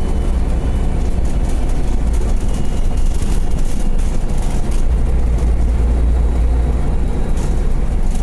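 Bus engine running and road noise heard from inside the moving bus: a loud, steady deep rumble that grows a little stronger about five seconds in.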